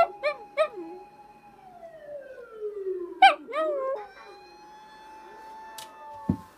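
Fire truck siren wailing, its tone holding steady and then sliding down into overlapping sweeps. Over it a dog answers with short yelping calls, three quick ones at the start and two louder ones about three seconds in. A low thump comes near the end.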